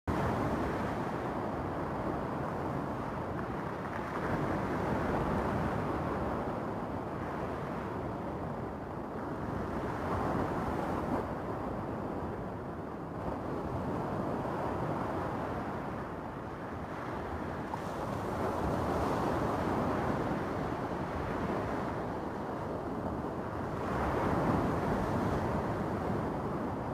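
Small waves breaking and washing over a stony beach, the surf swelling and fading every few seconds.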